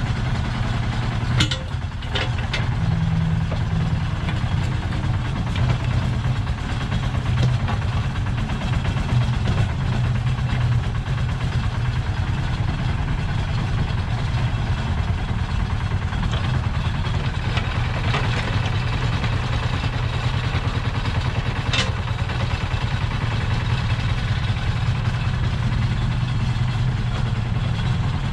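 The Lister SR1 single-cylinder diesel engine of a 1979 Smalley 5 mini excavator running steadily while the arm and bucket dig. A few sharp knocks come through it, two about a second and a half in and one about twenty seconds later.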